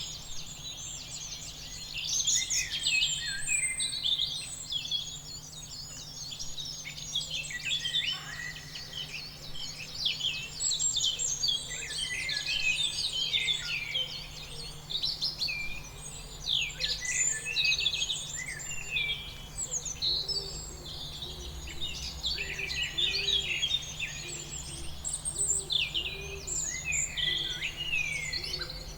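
Many songbirds chirping and singing at once: a dense, overlapping chorus of quick high calls and trills.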